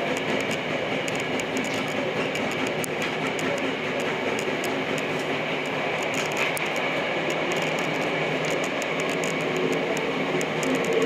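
Tokyo Metro Namboku Line subway train running underground, heard from inside the car: a steady rumble of wheels on rail, with scattered faint clicks.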